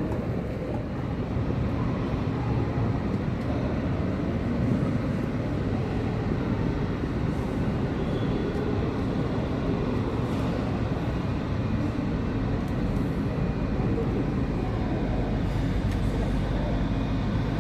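Embraer E195-E2 airliner's Pratt & Whitney PW1900G geared turbofans running at low power, heard as a steady, deep rumble.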